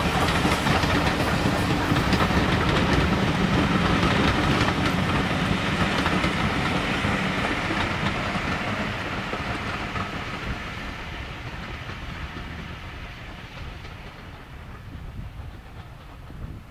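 A steam-hauled train behind Black 5 4-6-0 locomotive 45379 rumbling past on its way down the grade. The sound fades steadily over about ten seconds as the train draws away, leaving a faint rumble near the end.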